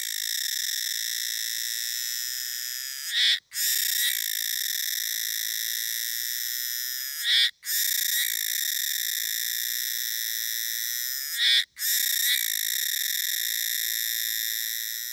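Kuroiwa's cicada (Meimuna kuroiwae) singing: a loud, steady, high buzz that breaks off three times, about every four seconds, each phrase ending in a short louder note and a brief gap before the buzz starts again.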